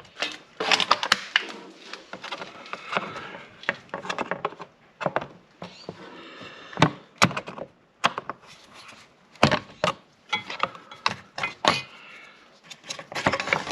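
Irregular knocks, clanks and scrapes of hand tools working on an air compressor's pulley and belt guard, with sharp strikes scattered throughout.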